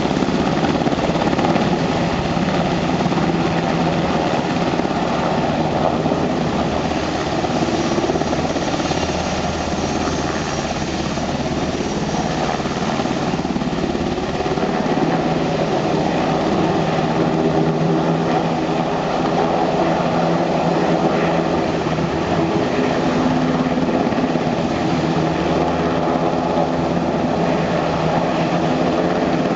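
U.S. Coast Guard HH-60 Jayhawk helicopter's main and tail rotors and twin turboshaft engines running loud and steady as it lifts off into a low hover.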